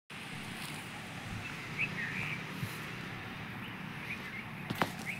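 Small birds chirping, short calls repeating every second or so over steady outdoor background noise, with a couple of sharp clicks near the end.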